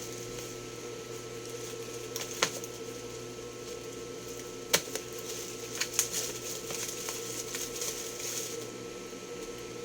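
Packaging being handled and opened by hand: a few sharp clicks and taps, with light rustling in between, over a steady background hum.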